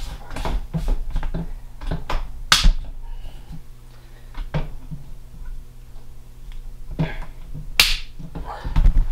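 Camera tripod being handled and raised, giving a string of irregular clicks and knocks with two sharper snaps, about two and a half and about eight seconds in.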